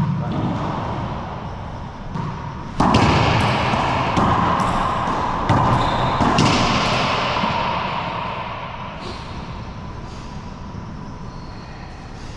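A racquetball rally: sharp smacks of racquets striking the ball and the ball hitting the court walls, each ringing on in the enclosed court's echo. The hardest hits come about three seconds in and around six seconds in, and the echo fades slowly after them.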